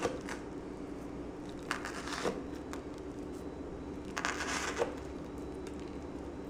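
Toothpicks pushed down through the toasted bread of a club sandwich, the toast crackling and crunching in a few short bursts, over a steady low hum.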